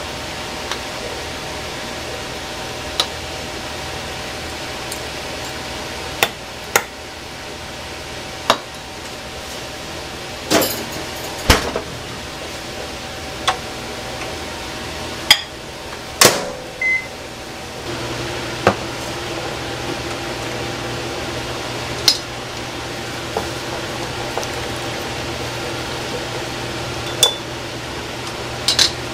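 Microwave oven in use: sharp clicks and knocks of the door and the cup being handled, a short beep about halfway through, then the steady hum of the oven running from just after the beep.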